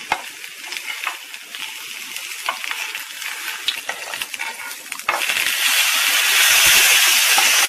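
Rehydrated dried pollack frying in hot grapeseed oil in a nonstick pan, sizzling, with light clicks of metal tongs against the pan as the fish is turned. About five seconds in, the sizzle suddenly becomes louder and fuller.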